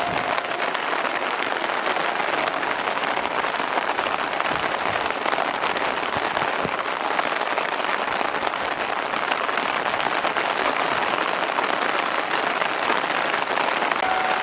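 Kintetsu train passing over a level crossing, a steady loud rush of wheels on rail that drowns out the crossing's warning bell.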